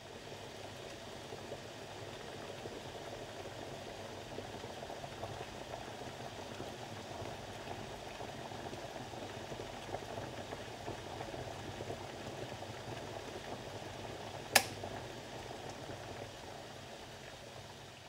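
Tefal electric kettle heating water, a steady rumbling and bubbling as it nears the boil. A single sharp click comes about two-thirds of the way through, and the rumble eases off over the last couple of seconds.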